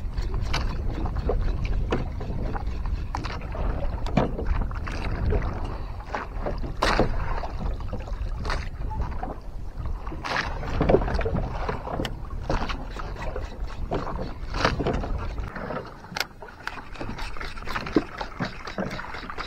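Water slapping against the hull of a small wooden outrigger boat, with wind noise on the microphone and scattered sharp knocks from rod-and-reel handling as a metal jig is worked. The low wind noise drops away about three-quarters of the way through.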